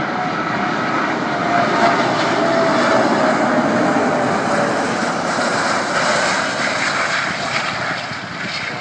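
Airbus A380 landing, its four Rolls-Royce Trent 900 turbofan engines making a steady rushing roar as it passes, with a whine that falls in pitch as it goes by. The roar eases a little near the end as the aircraft rolls away down the runway.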